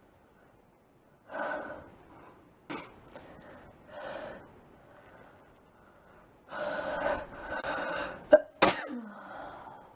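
A young woman sneezing near the end, after a run of short, breathy inhales and gasps building up to it.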